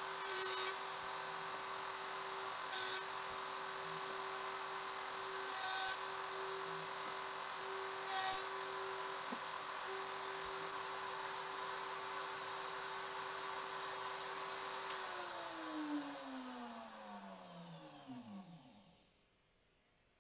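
Table-mounted router running at full speed with a steady whine, broken by four short louder bursts as the dovetail bit cuts into the end of the board. About fifteen seconds in the router is switched off and its whine falls in pitch as it spins down to a stop.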